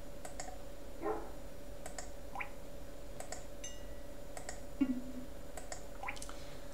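Mouse clicks about once a second, with short, faint GNOME alert sounds previewed between them: rising blips like a water drop, and a brief glassy ring.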